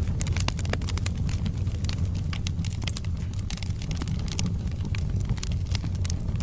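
Wood fire burning in a fireplace: a steady low rumble of the flames with frequent sharp, irregular crackles and pops from the burning logs.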